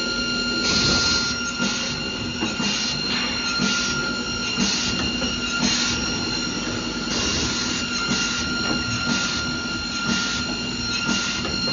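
Automatic chalk-mark defect cross-cut saw running: a steady high machine whine, with short hissing bursts about once a second.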